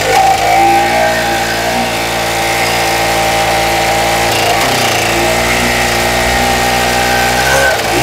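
Homemade 100cc twin-cylinder two-stroke engine, built from two pocket bike motors, running steadily in a mini bike on its first start-up. Its pitch wavers slightly around the middle and shifts near the end.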